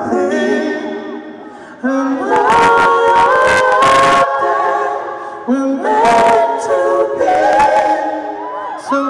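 Male lead singer and backing vocalists singing live in close a cappella harmony, holding sustained chords that change every second or two.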